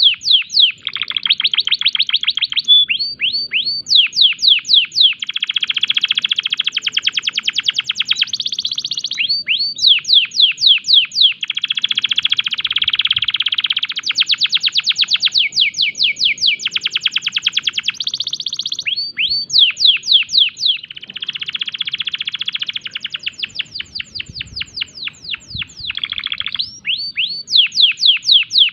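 Domestic canary singing a long, loud song in breeding condition. Runs of fast, sharply falling whistled notes, several a second, alternate with dense buzzing rolls, broken by short pauses.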